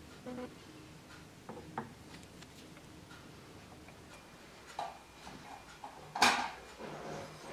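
Small metal machine parts being handled: a few light clicks and knocks, with one louder metallic clink about six seconds in.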